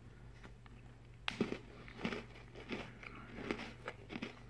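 A person biting into and chewing a Nutella Biscuits cookie: after a quiet first second, a run of soft crunches comes about twice a second.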